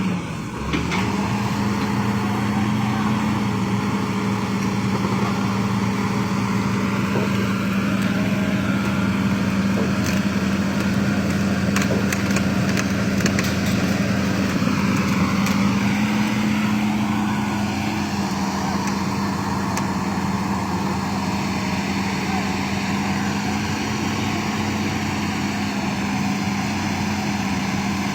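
Excavator's diesel engine running steadily under work, with a few sharp knocks about halfway through.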